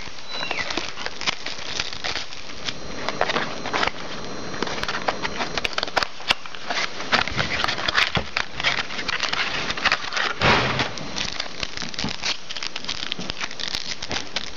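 Trading-card box packaging crinkling and rustling as it is unsealed and opened by hand, with many small clicks and taps and a heavier knock about ten seconds in.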